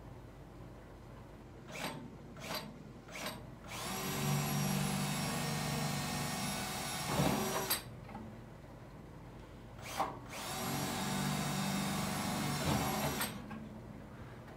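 Cordless drill boring holes into the steel of an Oklahoma Joe Highland offset smoker to mount LavaLock lid latches. A few short trigger pulls come first, then two steady runs of the drill's whine, about four and three seconds long, with a brief pause and a click between them.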